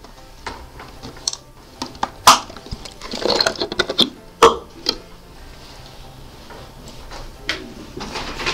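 A thin plastic water bottle crackling and clicking as it is handled and its cap twisted open. The sharp clicks come in scattered groups, the loudest about two seconds in.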